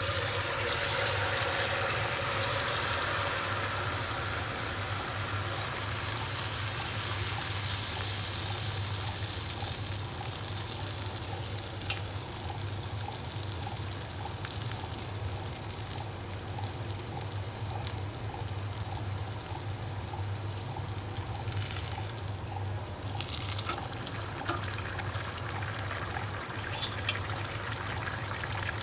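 Sel roti, rings of rice-flour batter, sizzling as they deep-fry in hot oil: a steady frying hiss that swells in the first couple of seconds and again about eight seconds in.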